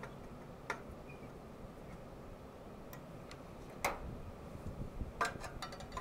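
A few scattered sharp clicks and taps from small parts and tools being handled, the loudest about four seconds in and a quick run of them near the end.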